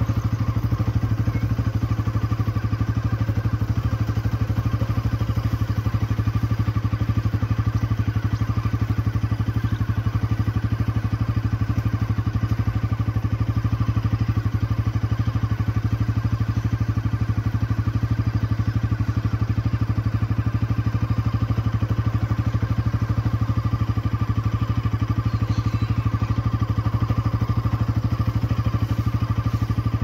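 Motorcycle engine running steadily while riding, its low note holding even with no revving.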